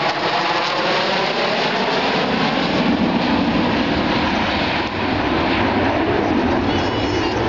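Four Su-27 fighters flying past in formation, their twin AL-31F turbofan engines making a loud jet roar. A falling whine fades over the first second, then a deeper rumble builds from about three seconds in as the jets pull away.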